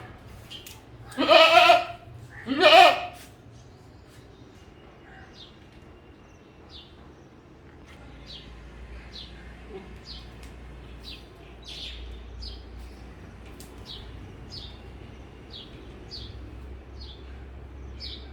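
Goat bleating twice in quick succession, two loud wavering calls near the start. Afterwards a small bird chirps faintly, a short high note about twice a second.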